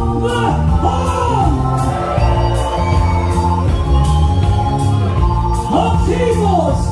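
Live ska band playing: singing over electric organ, bass and drums with a steady beat.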